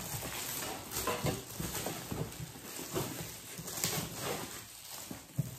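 Metallic foil gift wrap being torn and crumpled open by hand: irregular crinkling and ripping, with sharper crackles about one second in and again near four seconds.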